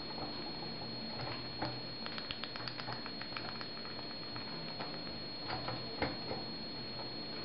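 Masked lovebird chick taking hand-feeding formula from a small spoon: scattered soft clicks and taps of its beak against the spoon, in clusters, over a faint steady high-pitched whine.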